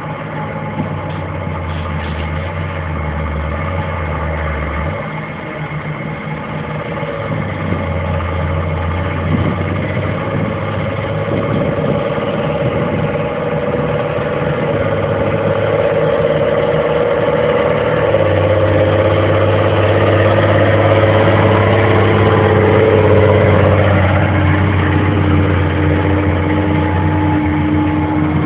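New Holland FR9060 self-propelled forage harvester chopping grass silage, with the tractor pulling the silage trailer running alongside. A steady diesel engine drone sits under a machine whine that climbs slowly in pitch and grows louder, then drops away near the end.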